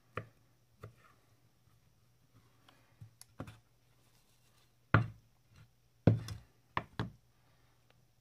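Separate knocks and taps on an end-grain wooden cutting board: a santoku kitchen knife's blade striking the board as it cuts through bread cubes, then a few louder knocks about five to seven seconds in as things are set down on the board.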